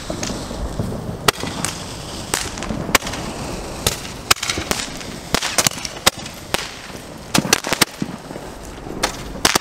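Handheld Roman candles firing: a long, irregular series of sharp pops, one every half second to second, as the balls shoot out, over the steady hiss of the burning tubes.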